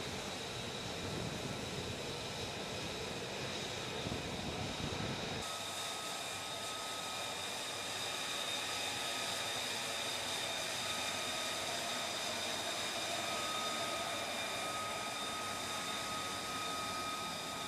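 F-35B's Pratt & Whitney F135 jet engine idling: a steady rushing noise with high whining tones held over it. The sound changes abruptly about five seconds in, losing its low rumble as the whine comes forward.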